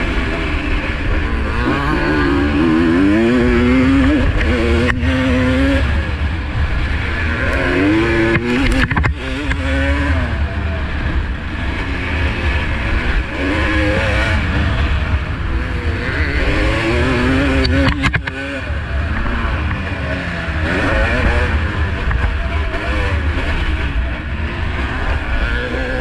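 1985 Honda CR250R single-cylinder two-stroke engine being ridden hard round a motocross track, its pitch sweeping up and dropping back again and again as the rider works the throttle and gears. A few sharp knocks come through along the way.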